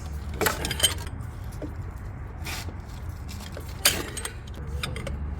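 Metallic clinks and knocks of a breaker bar and T55 Torx socket being worked on the brake caliper bolts as they are broken loose. There is a handful of separate sharp clinks, the loudest about a second in and again near four seconds.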